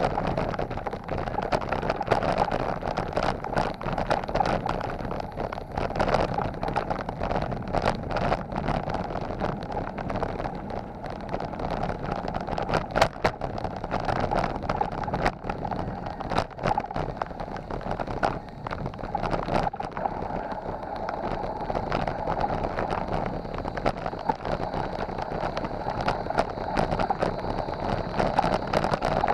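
Mountain bike rolling over a rough dirt and gravel road: steady tyre and wind noise with frequent knocks and rattles as the bike and its mounted camera jolt over the bumps.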